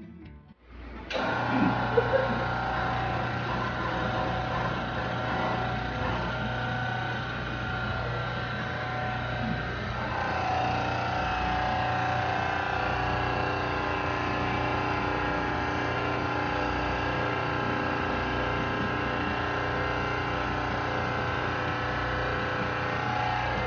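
Motor-driven hydraulic pump of a flexural and compression testing machine starting about a second in and running steadily with a hum, loading a beam sample in the flexural test; its tone changes slightly about ten seconds in.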